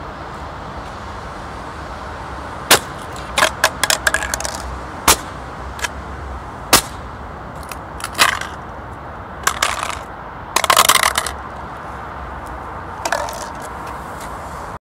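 Aluminium beer cans being stomped and crushed flat under a white leather sneaker on concrete: a series of sharp metallic cracks and crunches, with a longer crumpling crush about two-thirds of the way through.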